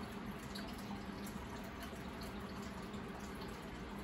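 Aquarium water bubbling and trickling, with many small drips and pops over a steady low hum.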